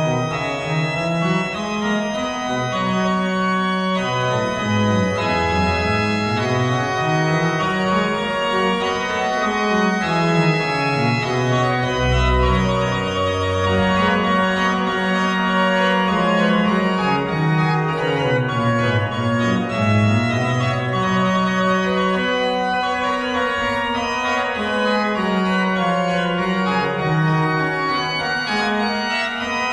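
Sampled Mascioni pipe organ played through virtual organ software: a polyphonic piece with sustained chords over a moving bass line, and a deep bass note sounding briefly about twelve seconds in.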